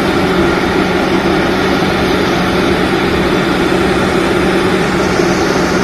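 A heavy engine running steadily at a constant pitch, with an even rushing noise over it.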